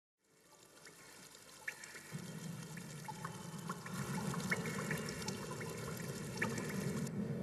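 Water trickling and pouring, with small drips and plinks over a steady splashing hiss. It fades in from silence and grows louder over the first few seconds.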